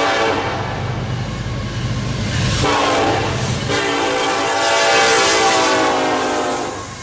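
Diesel freight locomotive horn sounding two long chord blasts, with a break of about a second roughly two and a half seconds in, as the Norfolk Southern locomotives pass close by with a low engine and rail rumble. The horn cuts off near the end.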